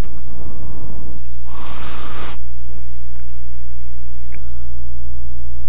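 Loud, steady electrical mains hum picked up by a computer microphone, with a person breathing into the microphone twice in the first couple of seconds.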